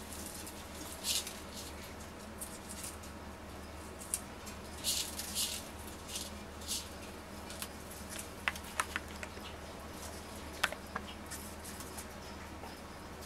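Young ornate uromastyx lizards feeding on lettuce and seed mix: scattered soft crunches and rustles, with a few sharp clicks past the middle, over a steady low hum.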